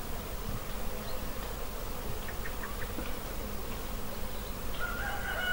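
A steady buzzing hum, like an insect or a small motor. Near the end a long, held, slightly rising high tone begins.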